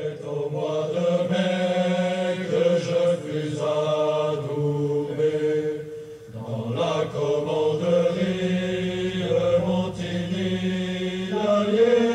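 Chanted singing by low voices in long, slowly changing held notes, with a brief break about six seconds in.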